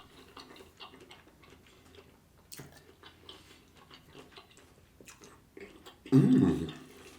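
Close-miked chewing: a man eating, with soft wet mouth clicks and smacks. About six seconds in comes one short, loud voiced sound from him.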